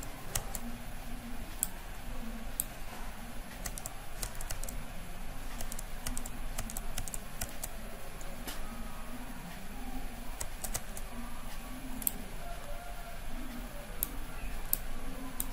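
Computer mouse and keyboard clicks at irregular intervals, over a low steady hum.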